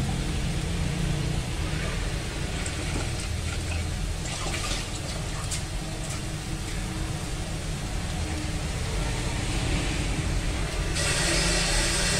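Minced meat sizzling in hot oil in a steel wok, a steady frying hiss. About eleven seconds in, the sizzle turns louder and brighter.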